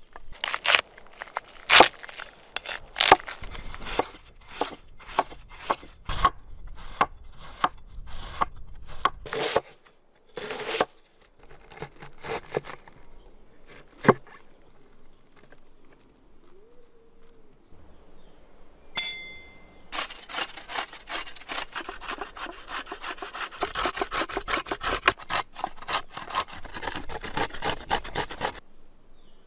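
Knife chopping cabbage on a wooden cutting board: irregular sharp strikes for the first ten seconds or so, then a few single chops. After that, carrot rubbed on a metal box grater: a dense run of rapid scraping strokes that stops just before the end.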